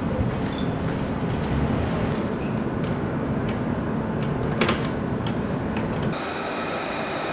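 Steady jet flightline noise: a low rumble broken by scattered sharp metallic clicks. About six seconds in the rumble falls away and a steadier, higher whine made of several tones carries on.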